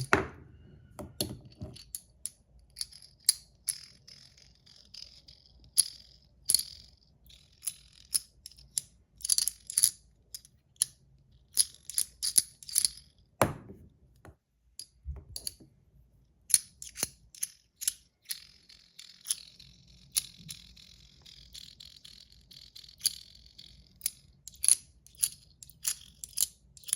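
Metal fidget toy being played with in the hand: many sharp metallic clicks and clacks at an irregular pace, with a deeper knock about halfway through.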